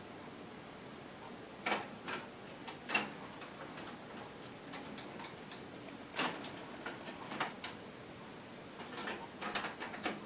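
Pioneer CT-M6R six-cassette changer's transport mechanism clicking and clunking as it moves a cassette into play: irregular sharp mechanical clicks, with a quicker run of clicks near the end.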